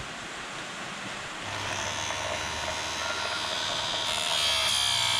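Electric chainsaw chain sharpener's motor switching on about a second and a half in and running with a steady hum and whine, growing louder and harsher near the end.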